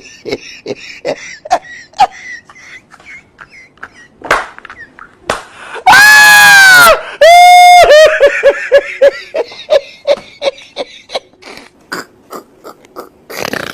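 Vocal sounds of laughing and wheezing, with two loud drawn-out calls about six and seven and a half seconds in, followed by a run of short repeated pulses.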